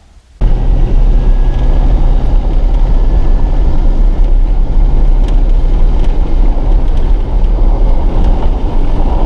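Loud rumble of a vehicle driving, with road and wind noise, starting suddenly about half a second in and running on steadily.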